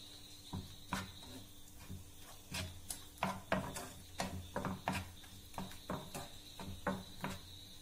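A plastic spatula scraping and knocking against a nonstick frying pan as it stirs a wet onion and tomato mixture, in irregular strokes about once or twice a second.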